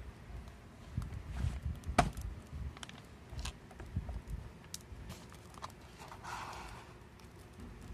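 Hands handling objects on a counter: scattered knocks and clicks, the loudest about two seconds in, and a brief rustle about six seconds in.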